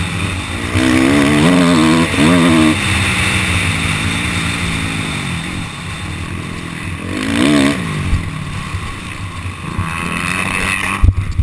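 Motocross bike engine heard from a camera mounted on the bike, revving up and easing off several times over steady wind rush, then a few sharp loud knocks near the end as the bike crashes.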